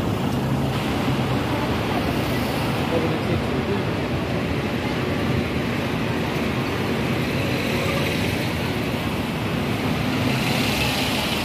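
Busy street ambience: steady road traffic going by, with passers-by talking.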